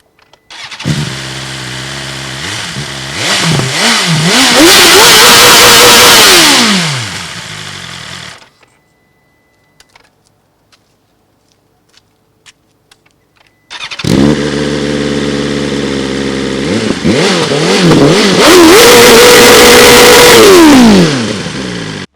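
A 2020 BMW S1000RR's inline-four engine starting, idling briefly, blipped a few times, then revved hard and held at high revs for about a second and a half before dropping back and being switched off. After a few seconds of quiet the same start, blips, high-rev hold and shut-off happen again.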